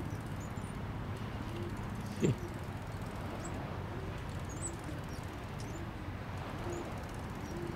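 Outdoor ambience with wind rumbling on the microphone and faint, scattered high bird chirps. About two seconds in, a short call falls in pitch.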